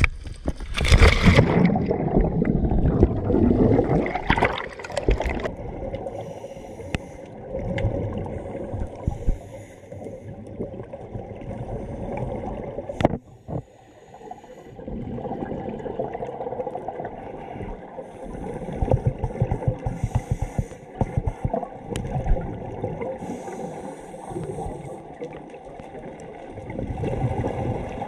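A diver's entry splash into the sea, then muffled underwater sound: a low rumble and gurgling with bursts of scuba exhaust bubbles every few seconds, and one sharp click about halfway through.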